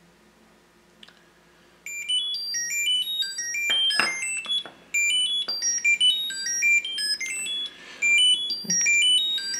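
Nut 3 Bluetooth key tracker ringing when triggered from its phone app: a fast melody of short, high electronic beeps stepping up and down in pitch. It starts about two seconds in and runs on with two brief gaps, and a few sharp clicks of the tracker being handled. The alert is not super loud.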